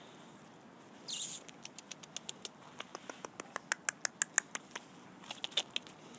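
Light, quick pattering of Yorkshire terrier puppies' paws running across artificial turf strewn with dry leaves, about five small clicks a second. A brief rustle comes about a second in.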